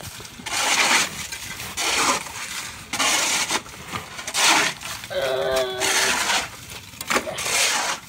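A person breathing hard and audibly close to the microphone, about seven noisy breaths, with a short voiced hum or groan about five seconds in.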